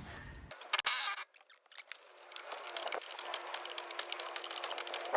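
Socket ratchet clicking quickly as the rear coilover and suspension-arm bolts are tightened, with a brief harsh rasp about a second in.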